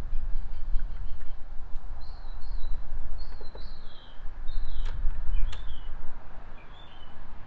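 Birds chirping, a run of short falling notes through the middle, over a steady low rumble that is the loudest thing heard. Two sharp clicks come around two-thirds of the way in.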